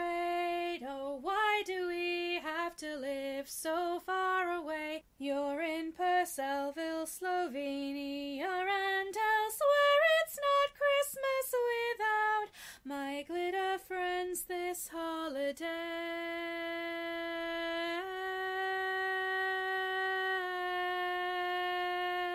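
A woman singing with no accompaniment heard: short sung phrases, then a long held final note in the last several seconds that steps up once and back down.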